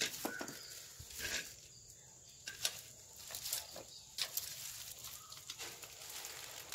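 Light clicks and taps of a car A/C compressor's clutch pulley and housing being turned and handled, with faint animal calls in the background.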